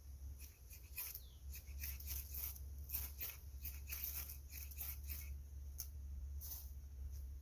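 A ferrocerium rod scraped again and again with a steel blade, a quick run of short rasping strikes, about three a second, throwing sparks to light tinder. The strikes start about a second in and stop near the end.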